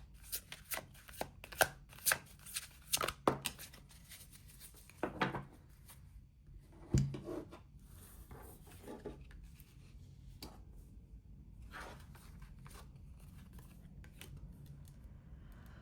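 Tarot cards being shuffled and laid out: a quick run of card flicks and taps over the first several seconds, then a few scattered, fainter taps.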